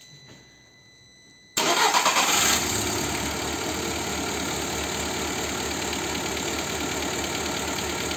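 Car petrol engine starting about a second and a half in, briefly louder, then settling into a steady idle with an even pulse. The idle still shakes from a cylinder misfire that a good replacement fuel pump has not cured.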